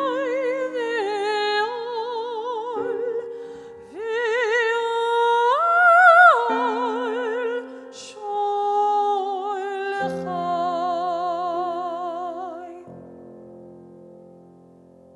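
Female cantorial soloist singing long held notes with wide vibrato over sustained accompaniment chords. The voice ends about 13 seconds in and the last chord fades away.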